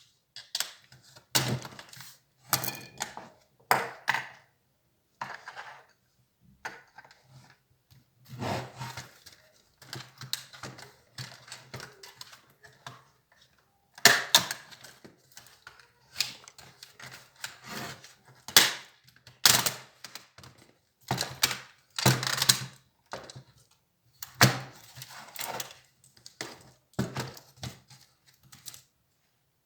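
Irregular clicks, taps and knocks of an HP Compaq 6910p laptop's plastic and metal parts being handled and pried apart during disassembly, with a faint low hum underneath.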